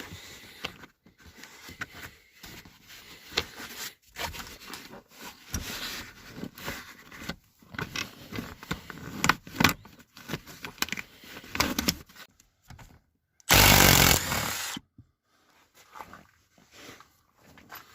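Hand work on a pickup's plastic center console: irregular clicks, knocks and scraping, with one loud burst of noise lasting just over a second about thirteen seconds in.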